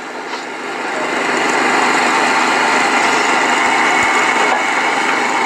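Excavator's diesel engine running steadily. It grows louder over the first second or two, then holds level.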